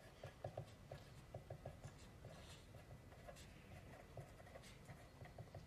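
Pen writing on paper: faint, quick scratching strokes as a phrase is written out by hand.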